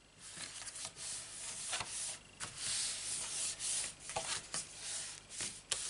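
A hand rubbing and smoothing down a freshly glued cardstock panel: a dry, papery swishing, broken by a few sharp clicks of card against the mat.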